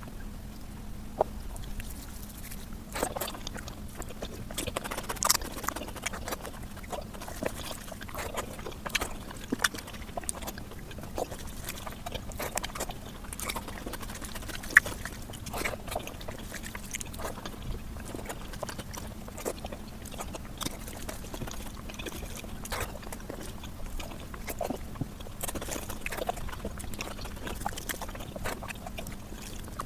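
Mukbang eating sounds of mutton fat curry played back many times faster than normal: a quick, irregular stream of wet chewing, lip smacks and clicks over a faint steady hum.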